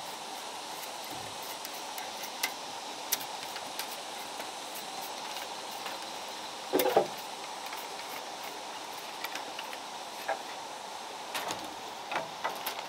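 A knife shaving and splitting thin bamboo strips by hand: scattered light clicks and scrapes, with one louder crackle about seven seconds in, over a steady rushing background noise.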